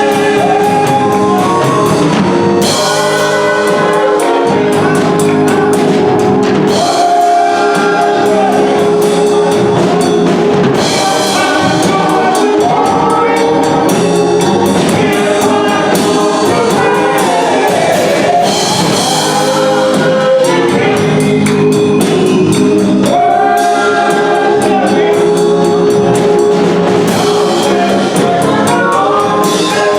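Gospel music: a choir singing over a band with drums and brass, loud and continuous.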